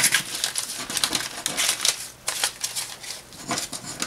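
Paper banknotes rustling and crinkling as a handful of $2 and $1 bills is gathered and squared up by hand, a quick run of crisp rustles.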